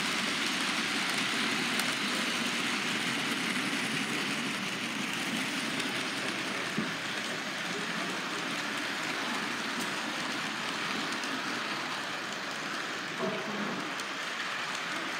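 Model trains running along the layout's track: a steady rushing whir of motors and wheels, with a couple of faint clicks.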